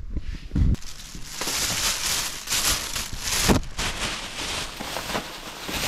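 Plastic shopping bag rustling and crinkling as it is handled, with two dull thumps, about half a second in and near the middle.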